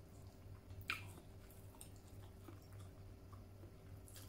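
A person chewing a mouthful of food, with faint wet smacks and small clicks and one sharper smack about a second in. A low steady hum runs underneath.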